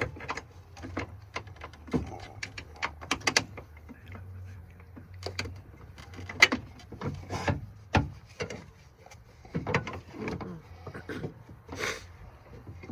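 Irregular clicks, clinks and scraping knocks of a metal battery cross brace and its bolts being handled and fitted into place by hand, the bolts being started hand-tight.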